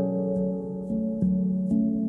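Background music: soft ambient instrumental with sustained ringing notes, a new chord struck about every half second.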